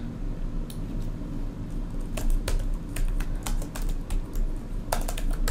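Typing on a computer keyboard: an irregular run of key clicks as a short phrase is typed out, in small clusters with brief pauses between them.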